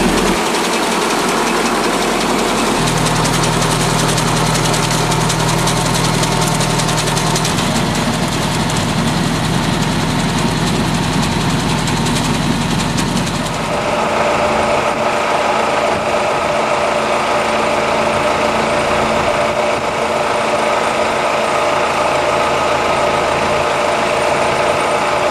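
Tractor engine running with a tractor-mounted hedge cutter at work, a continuous mechanical drone. About halfway through it changes to a steadier, more even hum.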